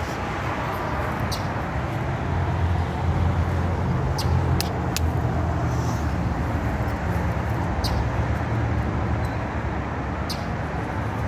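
Low, steady rumble of a motor vehicle close by, swelling a few seconds in and easing off, with a few light clicks over it.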